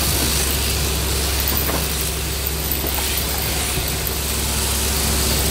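Overhead-drive sheep shearing machine running steadily, a low hum from the motor and down tube, with the handpiece's comb and cutter clipping through fleece.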